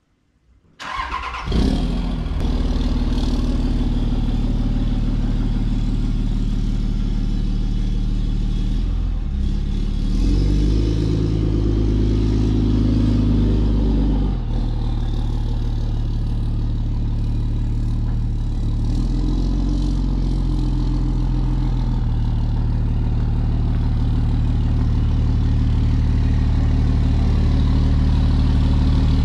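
A 2006 Dodge Ram 2500 pickup's engine starts about a second in and runs steadily. Its pitch rises and falls twice as the truck is driven off and backed up.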